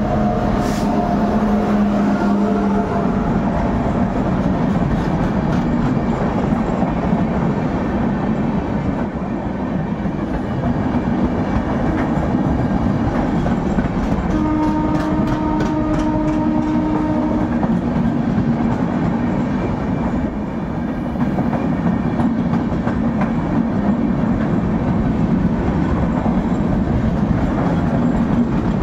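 Express passenger train passing at speed behind a WAP-7 electric locomotive: a horn sounds for the first few seconds as the locomotive goes by, then the coaches rush past with a continuous noise of wheels on rail and clickety-clack over the rail joints. Another steady horn-like tone sounds for about three seconds midway.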